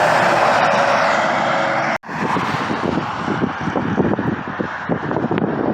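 A truck passing close on the highway, a loud rush of tire and engine noise. About two seconds in the sound cuts off abruptly, then comes back as quieter, irregular rumbling road noise.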